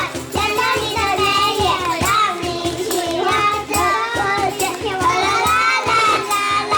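A group of first-grade children singing together over recorded backing music with a steady beat.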